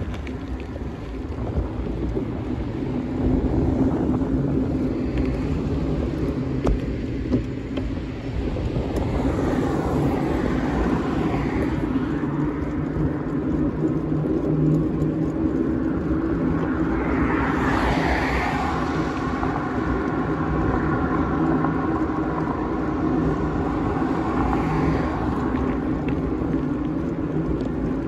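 Steady rumble and hum of a small handlebar vehicle being ridden over rough, cracked pavement. Cars pass by several times, each swelling up and fading, the loudest about two-thirds of the way through.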